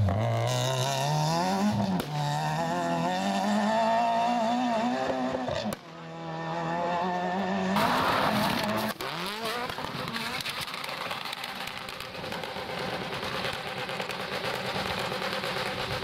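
Rally car engines at full throttle, their pitch rising and falling through revs and gear changes, with tyre and gravel noise. The sound cuts abruptly twice, about six and nine seconds in, and after that a fainter engine runs under a steady rushing noise.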